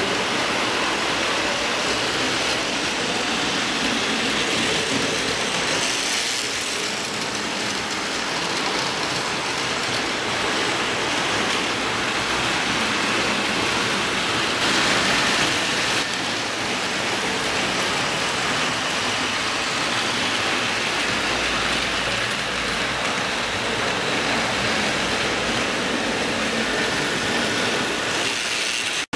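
Model train running on layout track: a steady rushing rattle of small wheels on rail and the little motor, slightly louder about fifteen seconds in as the train passes close by.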